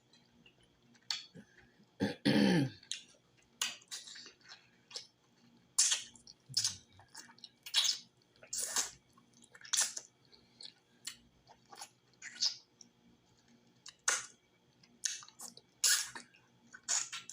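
Close-miked chewing of cooked cow foot: wet lip smacks and sticky clicks of the mouth, coming every half second to a second. About two seconds in there is a short throaty vocal sound.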